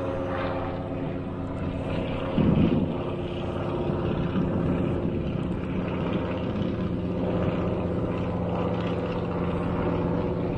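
Antonov An-2 biplane's nine-cylinder radial engine and propeller running steadily as it flies overhead, with a brief louder rush of noise about two and a half seconds in.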